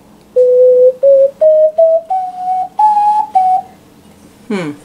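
Ocarina played as a rising scale of clear, pure notes. The first note is held longer, the line climbs six steps, and it drops back one step near the end.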